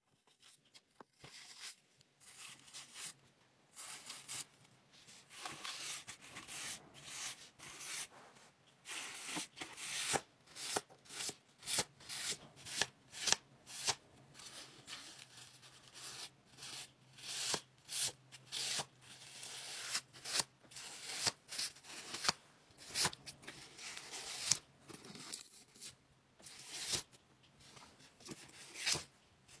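A tiny handmade mop of crumpled white paper swept and rubbed across a paper dollhouse floor in repeated short strokes, making a crisp, scratchy paper rustle more than once a second.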